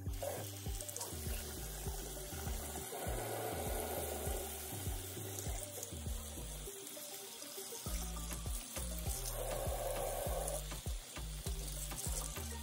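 Bathroom sink faucet running steadily while wig hair is rinsed under the stream. Background music with a steady beat plays underneath.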